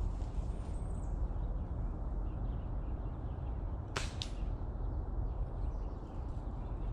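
A single sharp crack of a pellet-rifle shot about four seconds in, followed a split second later by a second, fainter snap.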